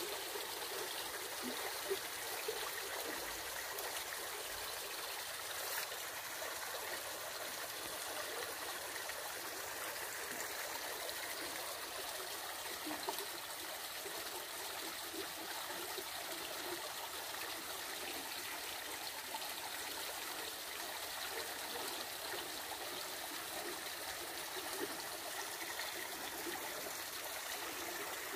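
A river flowing fast: a steady, unbroken rush of water.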